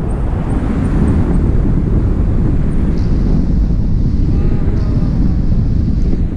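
Airflow buffeting an action camera's microphone during a tandem paraglider flight: a loud, steady, low rumble of wind noise.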